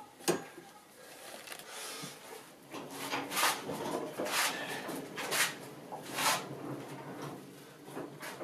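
A sharp metallic click as the foot-pressed lever of the worktable's retractable caster mechanism snaps over. After it come about four scraping, sliding strokes roughly a second apart.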